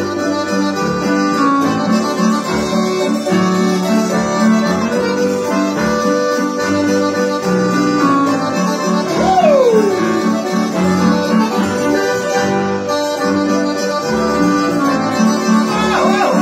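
Accordion playing a little waltz tune over a piano accompaniment with a steady, regular pulse of low chords.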